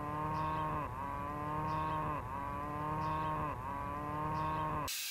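Table saw running in sped-up playback, its pitch sagging and recovering about every second and a half as boards are fed through one after another.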